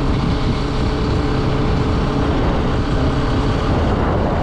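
Bajaj Pulsar RS200 motorcycle cruising steadily, its single-cylinder engine running under loud, steady wind rush on the camera's microphone.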